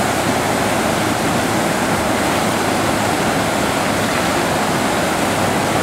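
Whitewater rushing steadily down an artificial concrete slalom channel, churning into standing waves around its obstacle blocks: a loud, even roar of turbulent water.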